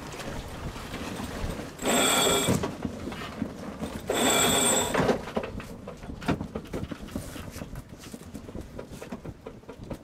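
Two short mechanical whirring bursts from a sailboat's deck gear, each just under a second and about two seconds apart, over gusty wind on the microphone.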